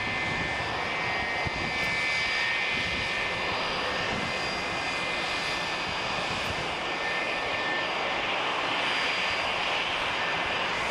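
McDonnell Douglas MD-88 jetliner taxiing, its two rear-mounted turbofan engines at taxi power: a steady high whine over a continuous rush of engine noise.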